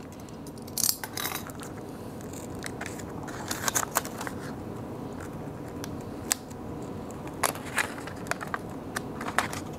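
Plastic clamshell packaging of a laptop RAM module being handled and pulled open: scattered light clicks and crackles of thin plastic, irregularly spaced.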